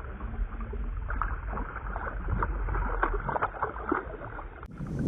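Small boat drifting on a lake: a steady low wind rumble with scattered light knocks and clicks of gear being handled, all sounding dull and muffled.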